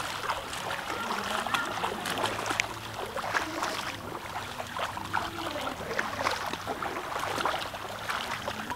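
Footsteps splashing and sloshing through shallow floodwater over grass, an irregular run of wet steps.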